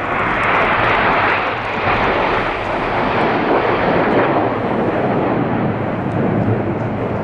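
Formation of BAE Hawk T1 jets flying past with loud jet-engine noise. It swells sharply at the start, then deepens in pitch as the jets go by.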